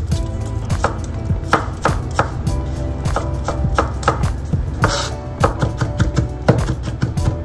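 Chef's knife finely chopping garlic cloves on a bamboo cutting board: quick, irregular knocks of the blade against the wood.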